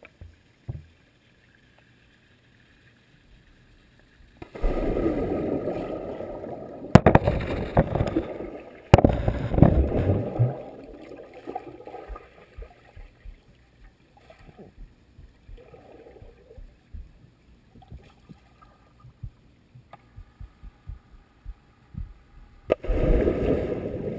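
Muffled splashing and bubbling of pool water heard from a GoPro held underwater: a few seconds of near silence, then loud churning bursts for several seconds, faint scattered knocks, and another burst of bubbling near the end.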